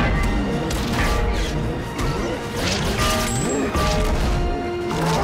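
Action-movie soundtrack: music with held notes under repeated crashes, smashes and blows from a superhero battle against alien invaders, struck several times across the stretch.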